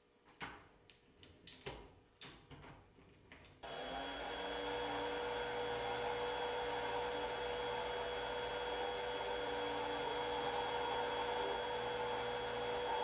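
A few irregular clicks and knocks, then about three and a half seconds in a Grizzly mini lathe's motor switches on and runs steadily with an even whine while it turns the brass tubing.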